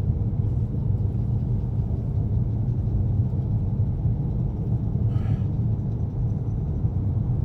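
Steady low rumble of a car driving, heard from inside the cabin, with a brief faint higher sound about five seconds in.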